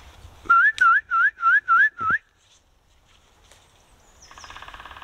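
Six loud, quick whistled notes, each rising sharply in pitch, about four a second. Near the end comes a quieter, brief fast rattle.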